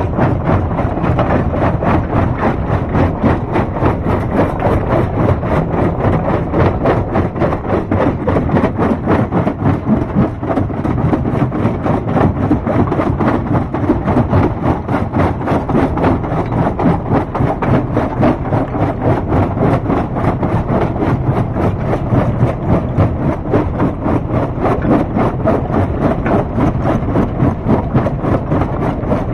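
Stone crusher running: a steady, loud machinery drone with a dense, rapid clatter throughout.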